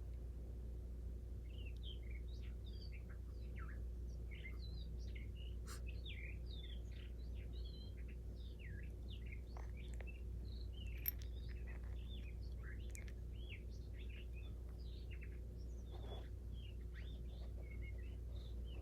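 Small birds chirping and twittering in a dense, continuous stream of short high calls, over a low steady hum. A single sharp click about eleven seconds in.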